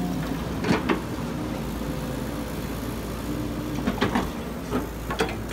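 Hydraulic excavator running steadily as its bucket digs and scrapes through soil and roots, with short knocks and clanks from the bucket about a second in and again near the end.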